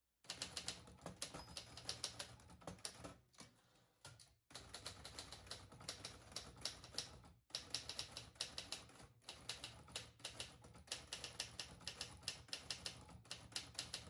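1967 Adler J4 manual typewriter being typed on: a quick run of soft key strikes, several a second, pausing briefly about four seconds in.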